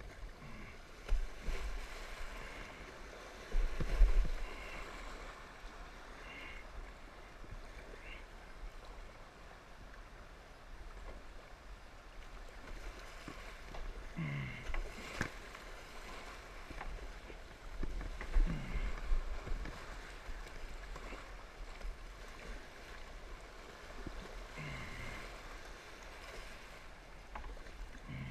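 Kayak running down a shallow riffle: steady rushing creek water with paddle splashes. Low thumps about a second in, around four seconds and around eighteen seconds are the loudest sounds.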